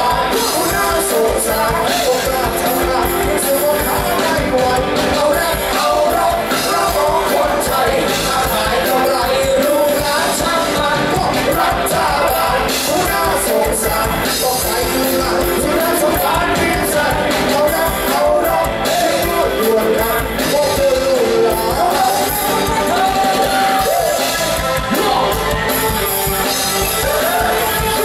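Loud music with a singer: a voice sings a melody over full band accompaniment, without a break.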